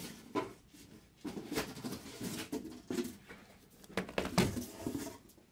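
Handling noise at a table: several sharp clicks and knocks with irregular rustling, the loudest knocks about four seconds in.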